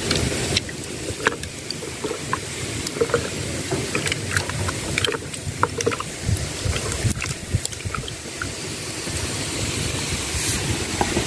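Hands squeezing and mashing a ripe noni fruit in a plastic tub of water: irregular sloshing and squelching with small splashes and clicks.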